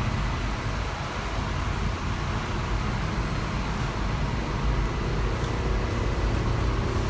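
Steady low rumble of a city bus engine with traffic and road noise, heard from aboard the bus.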